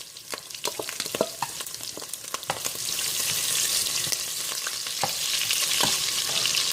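Garlic frying in hot rendered bacon fat in a pot, with sharp clicks and scrapes of a utensil stirring against the pot. The sizzle grows louder about three seconds in and then stays steady.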